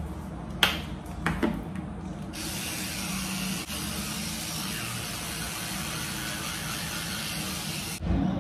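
A few sharp clicks, then an electric toothbrush running steadily while teeth are brushed from about two seconds in, cutting off abruptly near the end.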